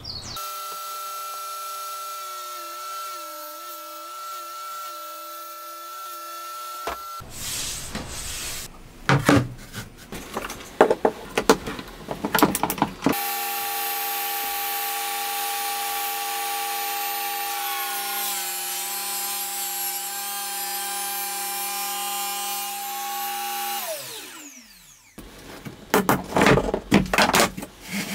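A motor-driven tool hums steadily at first, then boards and tools are handled with loud wooden knocks and clatter. A table saw then runs steadily for about ten seconds, its note shifting down a little partway through as a plywood board is fed through the blade, and winds down with a falling whine when switched off. More wooden knocks and rubbing come near the end.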